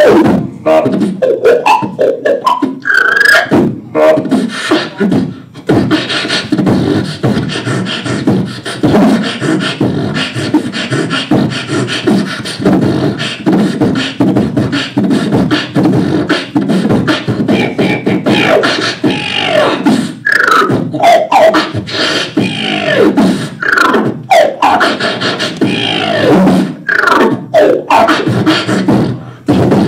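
Solo human beatboxing through a handheld stage microphone: a dense, continuous drum-like rhythm of sharp vocal clicks and snares over a heavy vocal bass, with sliding pitched vocal sounds mostly in the second half.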